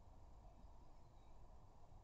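Near silence: only a faint, even low background noise.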